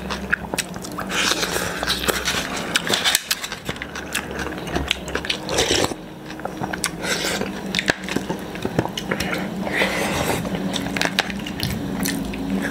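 Close-miked eating: slurping noodles and soup from a wooden spoon, with chewing and many small wet mouth clicks over a steady low hum.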